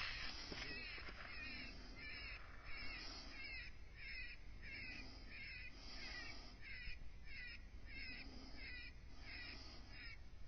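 A wounded fox yelping over and over, short high squalling calls at about two a second.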